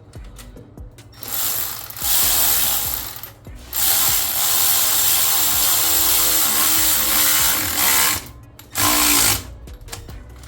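A power ratchet running in three bursts, a short one about a second in, a long one of about four seconds, and a brief one near the end, spinning down the nuts on the turbo downpipe flange. The motor's pitch wavers as the nuts take load.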